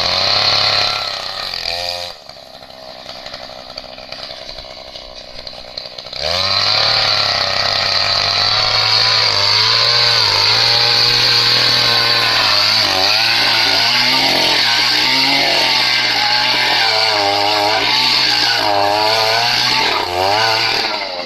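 Small two-stroke engine of a petrol earth auger (post-hole digger) running at high revs. It drops to a low idle about two seconds in, revs back up about six seconds in, and holds high revs with the pitch rising and falling under load before cutting off at the end.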